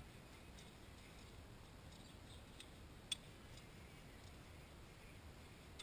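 Near silence with faint metallic ticks from safety wire and safety-wire pliers being worked by hand, and one sharper click about three seconds in.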